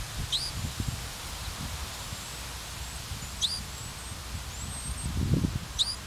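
Three short, high, sweeping chirps from a sparrow at its ground nest, about three seconds apart, over a low rustling of grass and wind.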